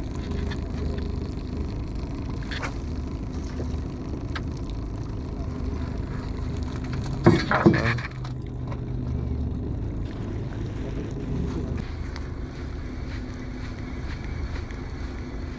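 Steady low hum of a boat's outboard motor, with two sharp knocks a little past halfway.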